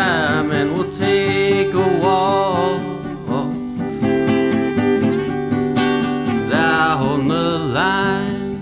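Live folk song: an acoustic guitar strummed steadily, with a man singing in a few drawn-out phrases over it.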